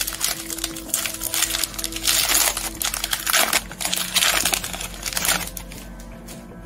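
Wrapper of a Topps Update baseball card pack crackling and tearing as it is ripped open by hand, a dense crackle that stops about five and a half seconds in.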